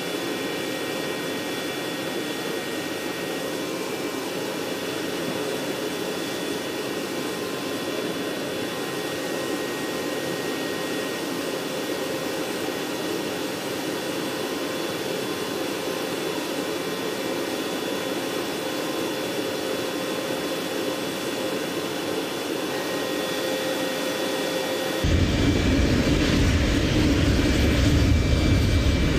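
Steady, high turbine whine of an AH-64D Apache Longbow helicopter on the ground, holding several fixed tones over a rushing noise. About four seconds before the end it cuts to a louder, deeper rumble from Apaches on the flight line.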